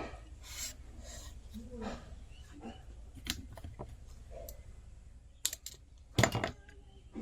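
Scattered small clicks, taps and scrapes of hard objects being handled, with a louder clatter about six seconds in, over a steady low hum.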